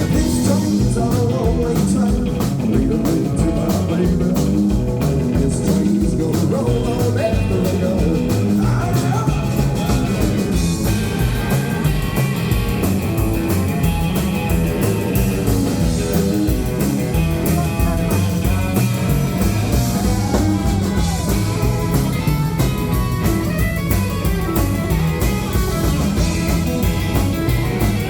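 A live band playing an uptempo rock and roll song with a steady driving beat and guitar.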